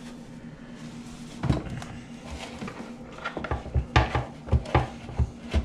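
Hands mixing and squishing a wet mixture of ground gar meat, potato flakes and chopped onion in a bowl on a wooden cutting board, with irregular knocks and thumps that come thicker toward the end.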